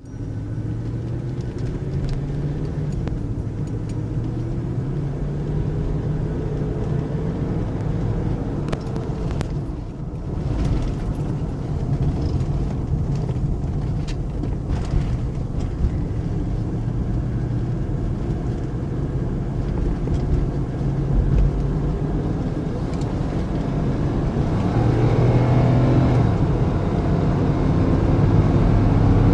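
Lincoln Aviator's 4.6-litre V8 running, its pitch rising and falling and growing louder over the last few seconds. The owner suspects an exhaust leak or a faulty EGR valve behind its loud engine noise and rough running.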